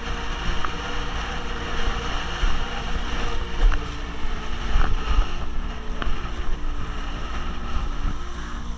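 Strong gusty wind buffeting the microphone while a vintage Mistral Screamer windsurf board planes fast across choppy water. Water rushes past the hull, and the board slaps on the chop with a few low thuds.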